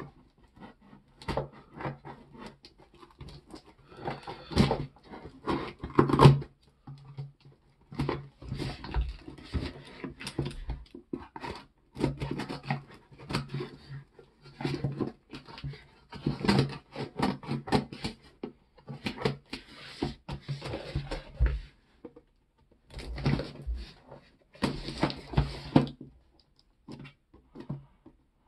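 Scissors slicing and scraping along packing tape on a cardboard box, with strips of tape being peeled off. The sound comes in irregular scratchy bursts with sharp clicks and short pauses between them.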